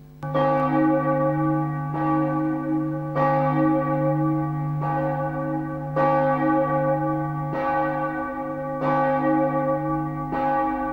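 A single church bell tolling, struck about eight times at roughly one-and-a-half-second intervals, each stroke ringing on into the next.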